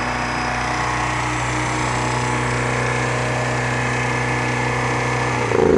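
Kohler 5E 5 kW marine gasoline generator running at a steady speed with an even hum. Near the end it gets louder and its pitch sags slightly.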